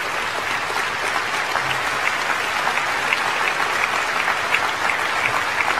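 Large seated audience applauding steadily: many hands clapping in a dense, even wash.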